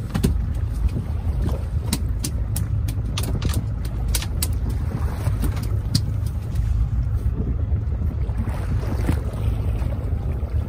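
Wind rumbling on the microphone and sea noise aboard a fishing boat, steady throughout, with a run of small clicks and knocks about two to four seconds in.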